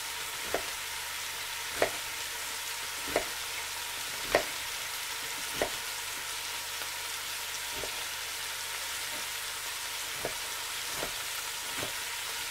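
Knife cutting through an onion onto a plastic cutting board, the blade striking the board with a sharp tap every second or so, loudest in the first half. Behind it, the steady sizzle of bacon frying in a pot.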